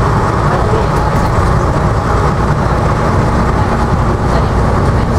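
AEC Routemaster double-decker bus's diesel engine running as the bus drives along, heard from inside the bus: a steady, even low rumble with road and body noise.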